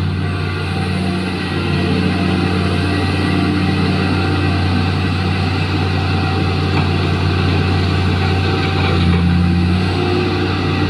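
Heavy diesel engine of a large hydraulic mining excavator running under load as the machine slews its loaded bucket over to a dump truck: a steady low drone.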